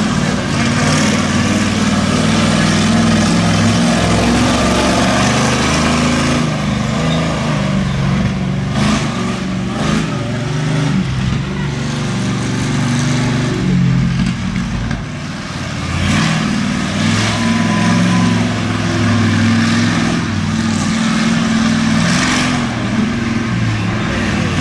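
Monster truck engine running loud and revving, its pitch rising and falling with the throttle as the truck drives across a dirt and grass field; the engine eases off briefly about two thirds of the way in, then picks up again.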